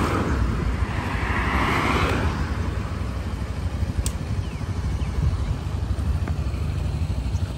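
Steady low rumble of road traffic, swelling in the first two seconds as a vehicle goes by, with a single sharp click about four seconds in.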